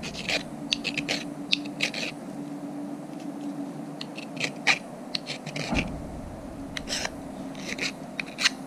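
Hand file scraping over the cut edge of a small piece of aluminium in short, irregular strokes, deburring the rough edge left by the chop saw.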